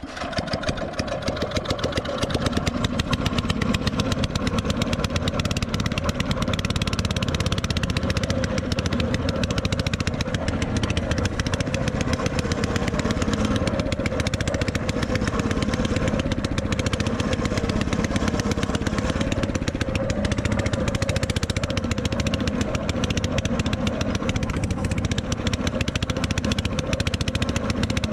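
Ketinting longtail boat engine running hard at high throttle. It comes up over the first couple of seconds, then holds loud and steady.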